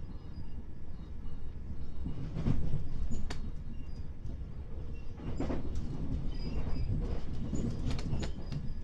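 Class 377 Electrostar electric train running on the rails, heard from inside the carriage: a steady low rumble with scattered clicks and knocks as the wheels cross rail joints and points, loudest about two and a half seconds in.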